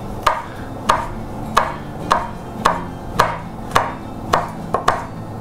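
A large kitchen knife slicing a guindilla chili pepper into rings on a plastic cutting board. The blade knocks the board at an even pace, just under twice a second, about ten cuts in all.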